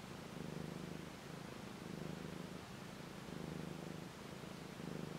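A mother cat purring steadily while her young kittens nurse against her. The low purr swells and eases about every second and a half, with each breath in and out.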